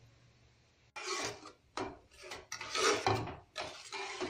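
Metal spatula scraping across the bottom of a pan in repeated strokes, stirring sugar as it melts into caramel. The strokes begin about a second in and come roughly every half second.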